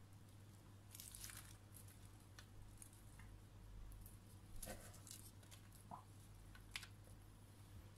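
Faint, soft rustling and pattering as handfuls of shredded lettuce are dropped onto a foil-lined tray, with a couple of light clicks, over a low steady hum.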